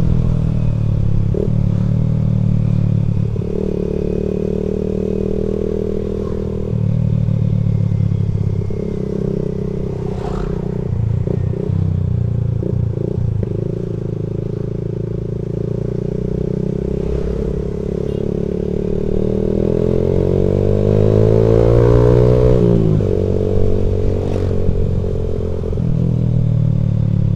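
Vehicle engine running under way, its pitch rising and falling with the throttle: it climbs steadily for a few seconds past the middle, then drops sharply near the end, as at a gear change. A few short knocks can be heard over it.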